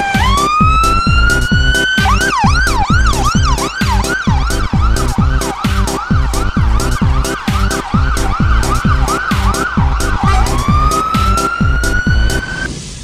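Fire engine siren: a rising wail, then a fast yelp of about three sweeps a second, then a rising wail again near the end, over a steady beat.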